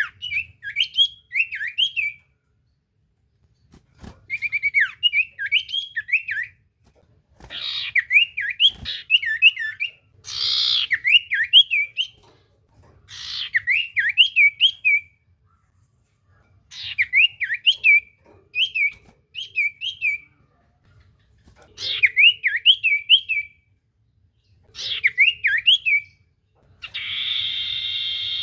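Common iora (cipoh) singing: repeated phrases of quick whistled notes sweeping up and down, each about two seconds long with short pauses between, several starting with a harsh rasping note. A hissy burst comes near the end.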